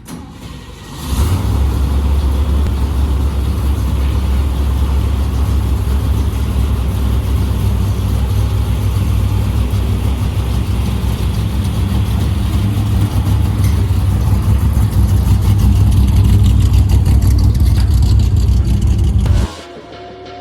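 1966 Chevrolet C10 pickup's engine running loudly and steadily, then cutting off abruptly near the end.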